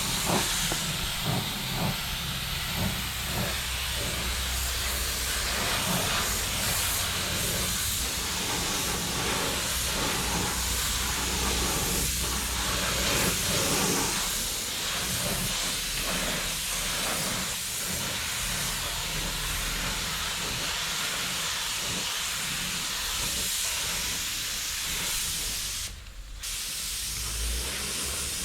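Compressed-air spray gun hissing steadily as undercoating is sprayed onto the car body, with one short break in the spraying near the end.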